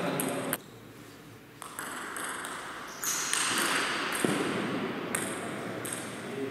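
Table tennis rally: the plastic ball clicks sharply on the table and bats in a series of quick knocks, with a brief lull about half a second in before play resumes, echoing in a large hall.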